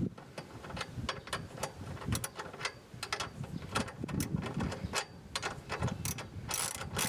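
Hand ratchet wrench clicking in short irregular runs as it is swung back and forth, tightening the bolts of a mirror clamp.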